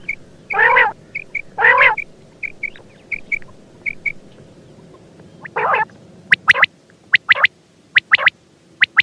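Quail calling. A few harsh, drawn-out calls about a second apart with small chirps between them, then from about six seconds in, quick sharp whistled notes in twos and threes.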